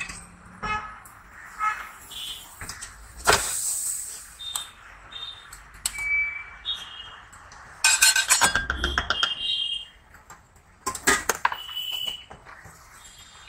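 Steel spatula and container clinking and scraping on cast-iron tawa griddles while stuffed parathas cook. There are several sharp clinks, some with a brief metallic ring, and a longer stretch of scraping and clatter about eight seconds in.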